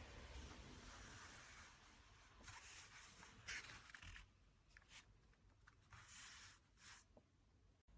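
Near silence, broken by a few faint, short rustling sounds.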